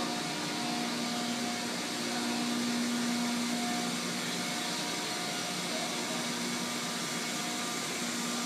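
Steady industrial machinery noise of an offshore oil platform's process area: an even hiss with a constant low hum and fainter steady whines above it.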